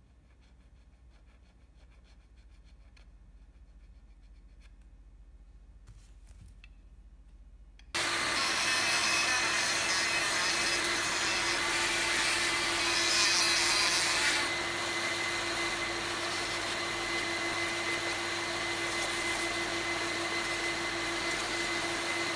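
Workshop vacuum dust extractor switching on about eight seconds in and running steadily until it cuts off at the end, louder and harsher for a couple of seconds midway while the composite landing-gear leg is cut down. Before it starts there is only faint handling noise.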